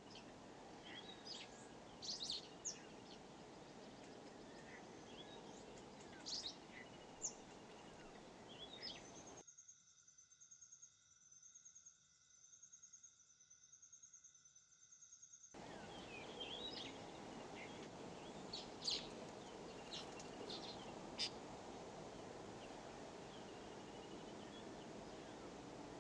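Faint outdoor ambience with scattered short bird chirps and calls over a steady background hiss. For about six seconds in the middle the hiss drops away and a steady, rapidly pulsing high trill takes over, then the ambience and bird chirps return.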